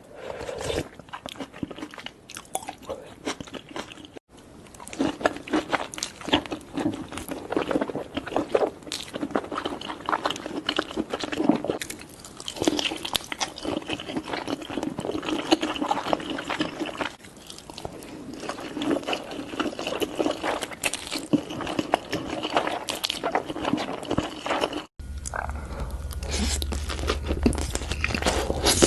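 Close-miked eating of seafood: wet chewing, biting and crunching in quick irregular clicks. The sound cuts off abruptly about four seconds in and again near the end, after which a low steady hum runs under the chewing.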